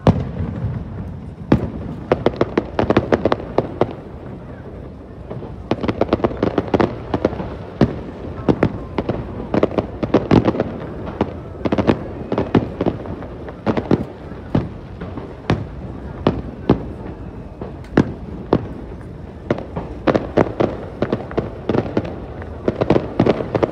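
Aerial fireworks bursting in rapid salvos: dense runs of sharp cracks and pops over a steady low rumble, with a brief lull about four seconds in.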